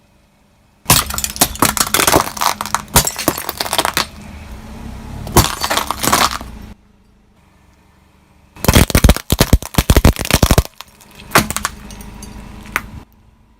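Loud cracking and breaking in three long bursts of dense, sharp cracks, with near quiet between them.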